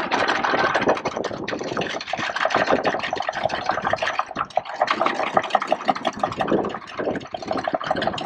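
Anchor chain rattling out over the yacht's bow fitting as the anchor is let go: a fast, continuous metallic clatter that eases off briefly a couple of times.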